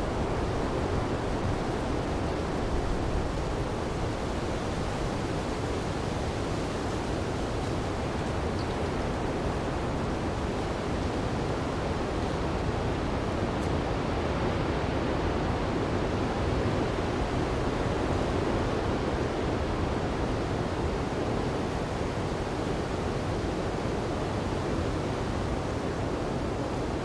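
Winter storm wind blowing steadily, a dense low rushing noise that swells slightly in the middle.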